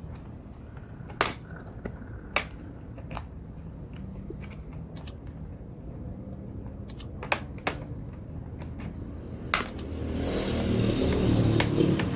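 Plastic snap-clips of a Lenovo V15 laptop's bottom cover clicking loose as the cover is pried and pulled away: several sharp clicks a second or more apart. Near the end a louder rustling of hands handling the case.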